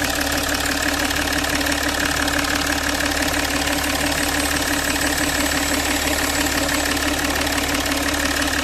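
Jaguar XF's six-cylinder diesel engine idling steadily after its six injectors were serviced, refitted and air-bled. It is running evenly, without the earlier misfire.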